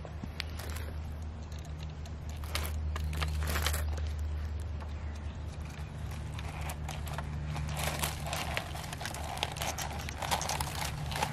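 Crumpled paper trash rustling and crinkling as it pours out of a tipped toy front loader garbage truck and drops onto dirt, with a few sharp clicks early on from the truck's body being handled. The pouring gets denser in the second half, over a steady low hum.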